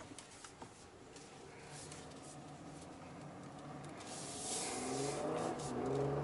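Porsche Cayenne Coupe's six-cylinder engine heard from inside the cabin as the car accelerates: the engine note grows louder and rises in pitch from about four seconds in. A few light clicks near the start.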